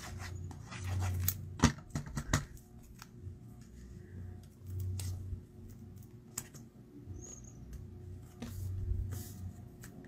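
Papercraft tools and cardstock being handled on a craft table: scattered light clicks and taps with soft rustling, and a few soft low bumps.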